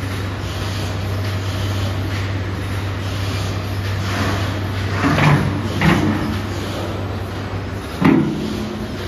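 Steady low hum of the paper-wrapping machine, with metal clunks from the paper reel trolley and mechanism as the reel is set in place: two knocks around the middle and a louder clunk near the end as the hum cuts off.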